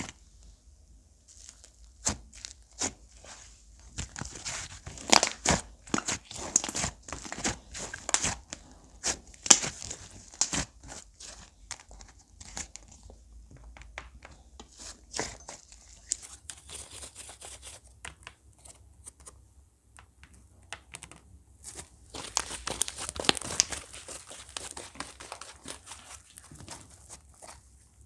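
Slime being stretched, pressed and squished by hand, giving irregular bursts of crackling and popping clicks. The crackling is densest about four to eleven seconds in and again around twenty-two to twenty-four seconds, with quieter squishing between.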